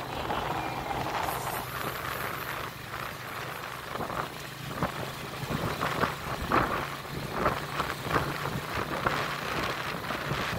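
Engine of a moving vehicle running steadily, heard from on board, with wind buffeting the microphone in short irregular gusts.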